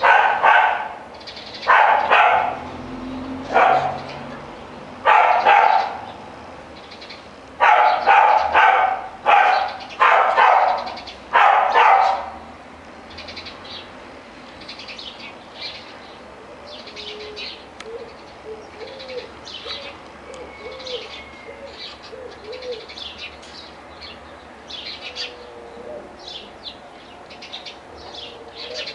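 An animal calling loudly and repeatedly, about a dozen short calls a second or two apart with some in quick runs, stopping about twelve seconds in; after that, faint bird chirps and twitters continue.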